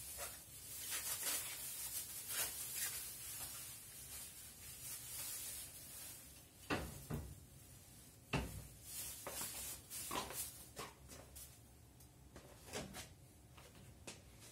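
Thin plastic bag rustling and crinkling as limes are pulled out of it, then two sharp knocks and a few lighter taps as the limes are set down on a plate.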